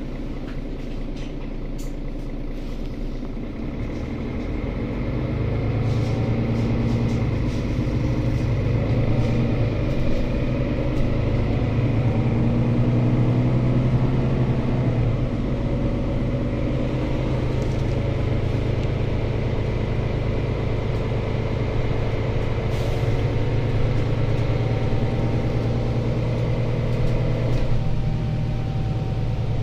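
Mercedes-Benz Citaro C2 city bus heard from inside the cabin: the diesel engine hums under road rumble. The engine rises in level about five seconds in as the bus picks up speed, then runs steadily, and eases off slightly near the end.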